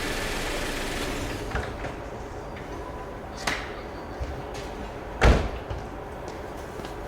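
A car engine running steadily dies away about a second in, then a few sharp knocks follow and one heavy thud about five seconds in.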